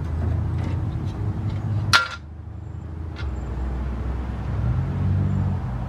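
A chrome headlight bezel being test-fitted against a car's front end: a single sharp metallic click about two seconds in, and a fainter click about a second later. A low, steady rumble runs underneath.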